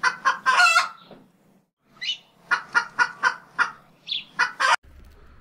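Poultry clucking and calling: a few quick calls at the start, then a run of short, evenly spaced clucks, about three or four a second. The calls stop suddenly near the end.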